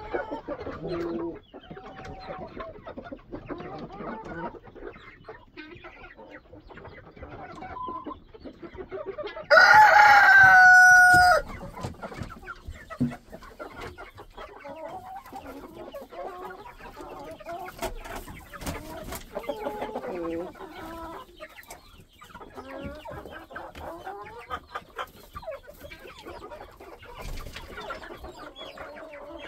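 A flock of chickens clucking throughout, with one loud rooster crow about ten seconds in that lasts about two seconds.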